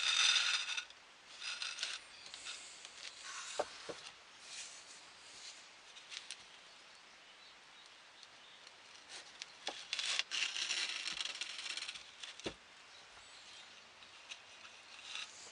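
Twine being drawn through drilled holes in a wooden bowl: intermittent rasping and rubbing of cord against wood as it is stitched, with a few light knocks as the bowl is handled.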